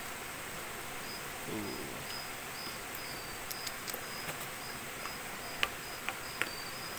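Steady hiss from a portable gas stove burner under a wok of coconut-milk eggplant curry at a simmer, with a few sharp clicks of a plastic ladle against the wok in the second half. A cricket chirps in a quick, regular high pulse over it.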